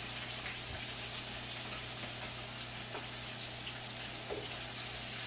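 Red snapper pieces frying in hot oil: a steady sizzle with a few faint pops.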